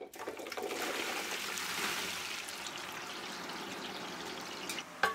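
Chopped raw plantain (nendran) pieces tipped into a large pan of hot oil, the oil sizzling up as they go in and settling into a steady hard frying hiss. A short knock near the end.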